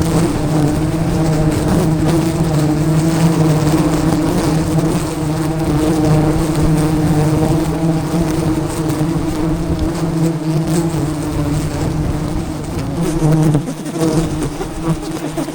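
A swarm of wild honeybees buzzing loudly and steadily around their hive, with a low rumble of wind on the microphone underneath.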